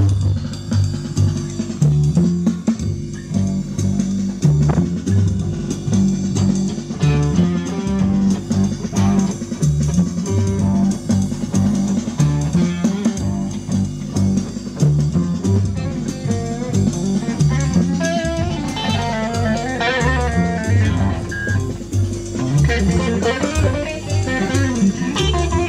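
Band music with a drum kit, a repeating bass line and guitar, with a melodic lead line about two-thirds of the way in.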